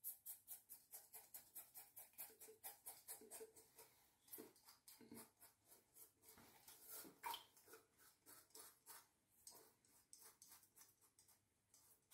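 Faint scraping of a Gillette Sensor 3 three-blade cartridge razor cutting stubble in short, quick strokes, several a second, with one slightly louder stroke about seven seconds in.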